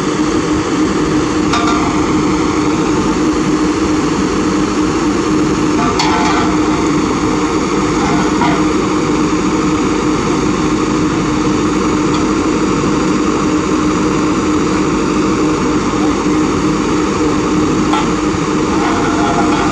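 Kobelco SK200 excavator's diesel engine idling with a steady hum. A few short metal knocks and clanks sound over it as beams are set into its bucket.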